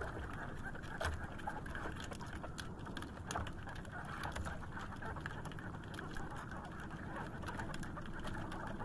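Water lapping and splashing against a small outrigger boat's hull on choppy sea, a steady wash with scattered small slaps and clicks.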